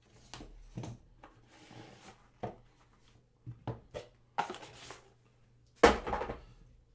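Hands opening and handling a cardboard box of trading cards: a string of taps and knocks with short rustles between them. The loudest knock comes about six seconds in.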